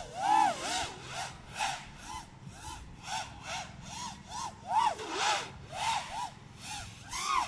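FPV racing quadcopter's brushless motors whining in short swells about twice a second, the pitch rising and falling with each throttle punch.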